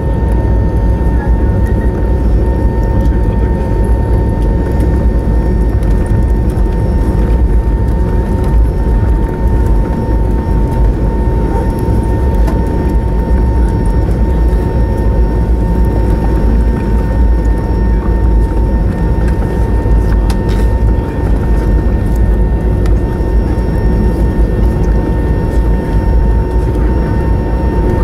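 Cabin noise of an Airbus A320neo taxiing, heard from a window seat over the wing: its Pratt & Whitney geared turbofans at taxi power as a steady low rumble, with a thin steady whine over it.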